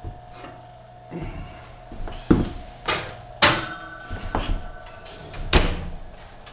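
A heavy bean pot being loaded into a wall oven: a series of clunks and knocks, one with a short metallic rattle of the oven rack, then the oven door shut with a thump about five and a half seconds in.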